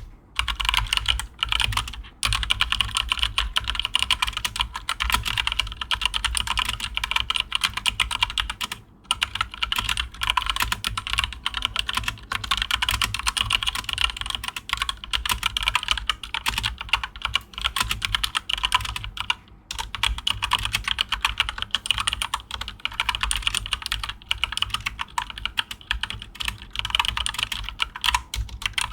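Fast typing on a keyboard fitted with Mario keycaps: a dense, continuous run of key clacks, broken by short pauses about two, nine and nineteen seconds in.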